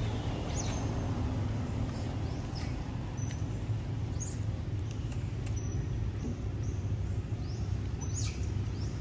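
Short, high-pitched chirping calls, half a dozen or so scattered a second or two apart, over a steady low hum.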